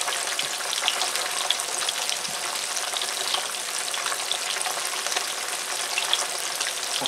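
Breaded flounder fillets frying in vegetable oil in a pan: a steady sizzle with many small crackling pops.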